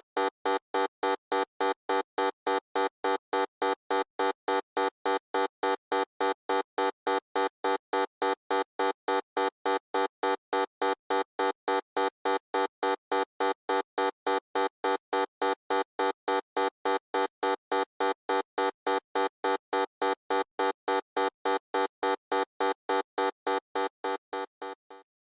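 Loud electronic buzzer pulsing on and off in a rapid, even rhythm: a harsh tone with many overtones. It fades out near the end.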